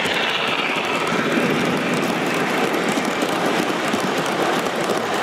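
O gauge model steam locomotive and its stainless-steel passenger cars passing close by on three-rail track: a steady rumble with a dense clatter of wheels over the rails.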